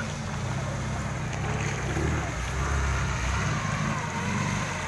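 Off-road 4x4's engine running steadily as it drives through a shallow muddy stream, with an even hiss of moving water over the low drone.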